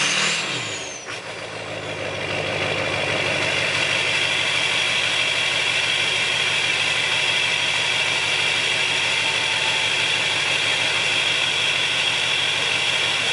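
Duramax turbo-diesel V8 running through a 5-inch MBRP exhaust, its revs dropping back about a second in with a falling whistle, then idling steadily.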